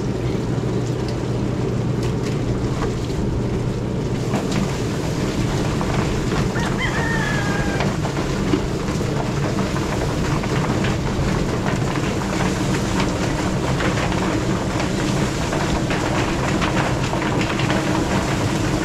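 A machine running steadily with a low hum under a constant crackling hiss.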